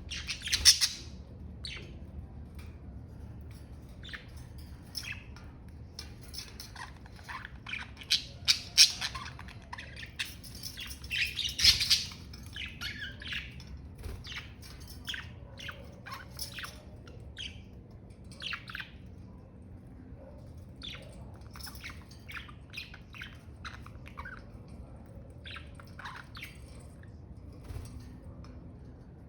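Pet budgerigars chirping and chattering in quick, short warbled notes and squawks, with louder bursts of chatter near the start and again about a third of the way in.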